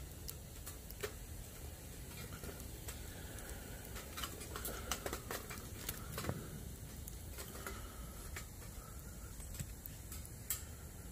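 Wood fire crackling in a Bushbox XL metal box stove, with irregular sharp pops and clicks. Around the middle the clicks come thicker as a stick is pushed into the firebox.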